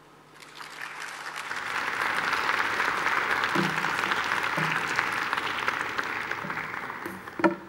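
Audience applauding, building up over the first two seconds, holding steady, then thinning out near the end.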